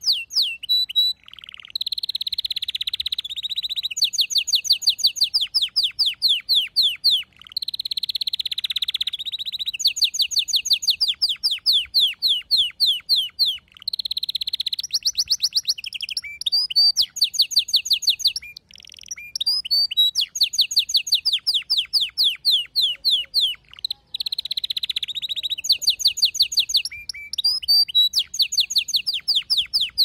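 Male domestic canary singing a long, loud song made of rapid trills. Each phrase repeats one note type many times before switching to another, with a few brief pauses.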